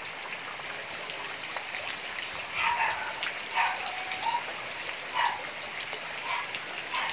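Steady rain hissing down on roofs and floodwater. A few short calls cut through it from about two and a half seconds in.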